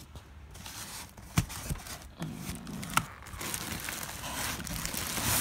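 Cardboard box flaps and plastic wrapping being pulled open and rustled, with a couple of sharp knocks. The rustling grows louder and denser in the second half.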